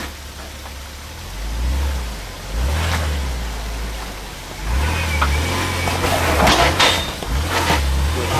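Jeep Wrangler TJ engine revved in short bursts while crawling a rock ledge, then held up from about five seconds in, with scraping and knocking as the Jeep works against the rock.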